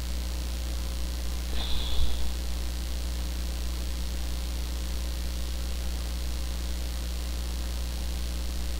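Steady low electrical hum, with one short high-pitched sound about two seconds in.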